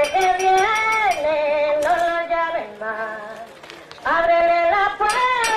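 Voices singing a Santería chant in long held notes that step up and down. The singing fades out about halfway through and comes back strongly about four seconds in, with a steady ticking percussion beat returning near the end.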